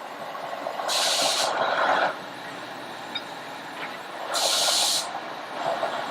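Two short, loud hisses from the train, about three and a half seconds apart and each lasting about half a second, over the steady running noise of the carriage.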